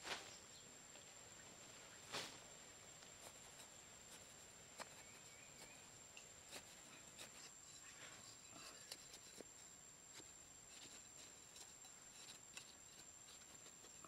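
Near silence with faint, scattered clicks and scrapes of a knife blade digging and scooping loose sandy soil, two sharper knocks near the start about two seconds apart, over a faint steady high-pitched tone.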